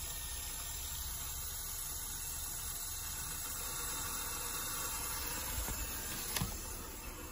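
Steady hiss of water running through the pipe-flow rig's tubing and rotameter, with one short knock about six and a half seconds in.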